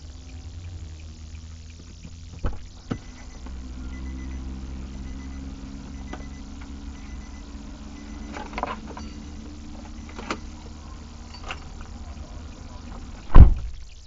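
Steady low hum of a stopped car, heard from inside it, broken by a few sharp knocks and clicks and one loud thump about a second before the end.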